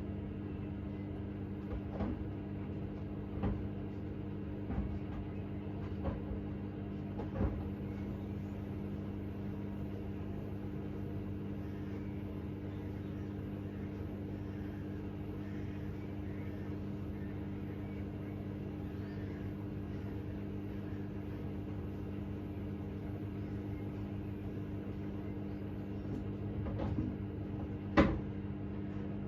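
Hoover H Wash 600 washing machine running with a steady hum. A few soft knocks come about every second and a half in the first several seconds. Near the end comes one sharp click, the loudest sound.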